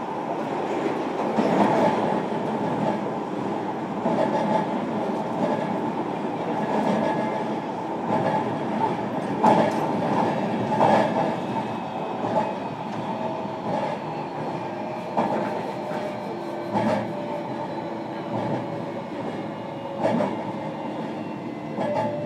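JR Kyushu 305 series electric train running between stations, heard inside the motor car from above its brake controller: a steady rumble with electrical tones from the drive. Sharp wheel clacks come every few seconds.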